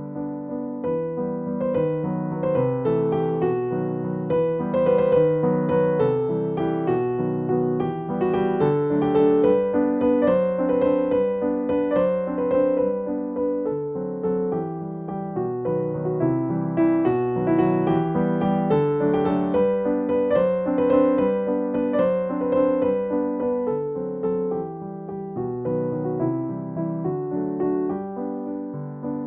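Background music: a piano playing a gentle melody of separate notes.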